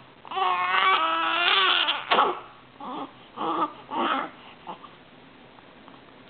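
Baby crying: one long high-pitched wail of about two seconds, then three short sobbing cries about half a second apart, dying away.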